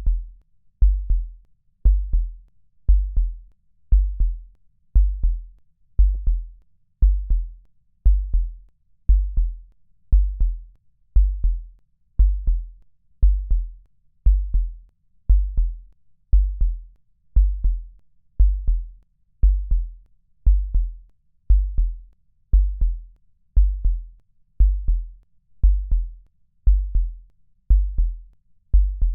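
Deep electronic drum beat: a low doubled thump about once a second, repeating evenly with nothing else over it.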